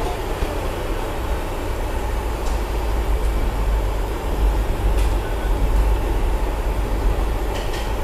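Steady low roar of a gas burner firing under a large aluminium soup pot, with a couple of faint clinks from the ladle stirring in the pot.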